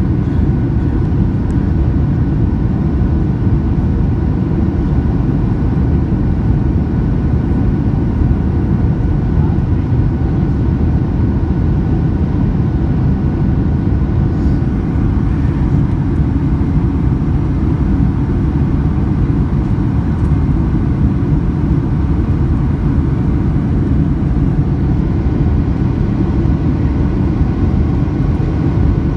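Steady cabin noise of a Boeing 737-800 on final approach, with landing gear down and flaps at 30: airflow and the CFM56 engines give a deep, even noise with a few faint steady whining tones above it.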